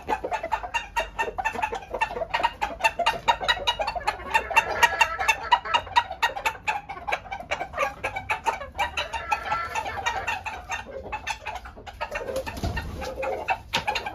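Roosters clucking in a long run of quick, short notes, several a second. The owner takes this kind of sound as a sign the birds are at ease and not mistreated.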